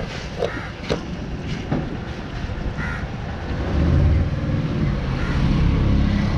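Three sharp chops of a heavy knife into fish on a wooden board in the first two seconds, and a crow cawing once about three seconds in. A low engine rumble then comes up about four seconds in and carries on as the loudest sound.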